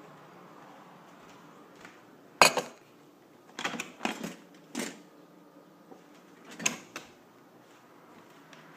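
Several sharp knocks and clunks: a loud one about two and a half seconds in, a quick cluster around four seconds, and another near seven seconds.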